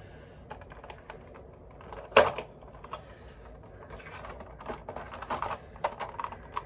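Cardboard Funko Pop box being handled and opened by hand: scattered taps and scrapes of the packaging, with a sharper knock about two seconds in and a run of quick clicks near the end.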